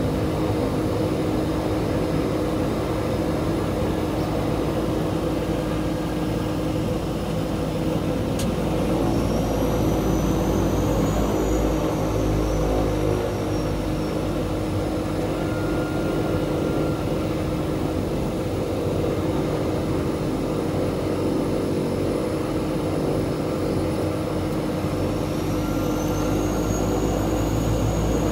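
The de Havilland Canada DHC-6-300 Twin Otter's Pratt & Whitney PT6A turboprop engines running at taxi power, heard from inside the cabin: a steady propeller drone with a high turbine whine that rises and falls in pitch twice.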